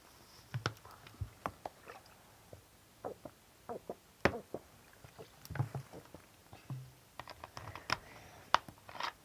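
Someone drinking a fizzy drink straight from a bowl: irregular small sips and wet clicks, with a couple of low gulps in the middle.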